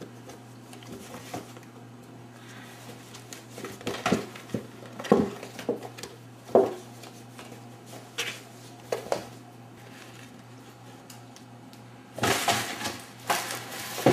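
Kittens batting and scrabbling at a cardboard soda carton, the box knocking and scraping on a wooden floor: scattered knocks and scuffs, with a busier flurry near the end, over a faint steady low hum.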